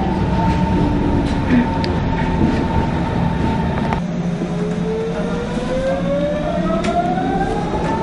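Berlin S-Bahn electric train running, with steady wheel and running-gear rumble and a motor whine that rises in pitch over the second half.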